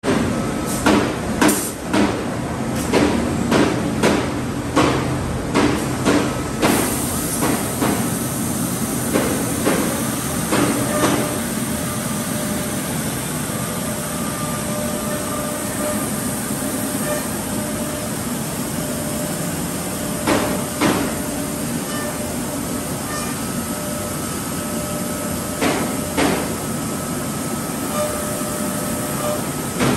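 Busellato Jet 200RT CNC router in operation: a steady machine hiss and hum with a string of sharp clunks, about one or two a second for the first several seconds, then in scattered pairs and groups.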